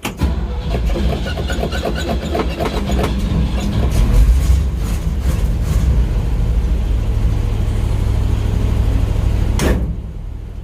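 1970s Chevrolet dump truck engine cranking and catching while the gas pedal is pumped, running unevenly at first and settling into a steadier run about seven seconds in. The loudness drops briefly about a second before the end.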